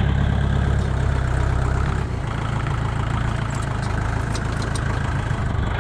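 Kubota tractor's diesel engine running steadily at a low idle, easing slightly about two seconds in, with a few faint ticks near the end.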